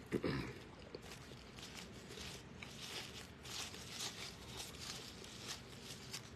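Faint, irregular rustling and handling noises from a paper napkin being crumpled and worked between the hands.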